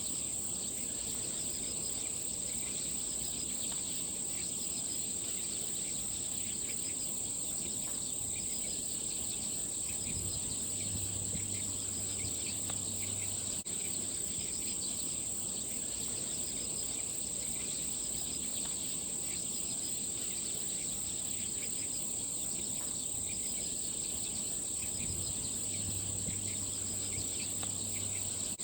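Insects chirring in a steady, high-pitched chorus: one continuous shrill trill with faster pulsing chirps layered in it.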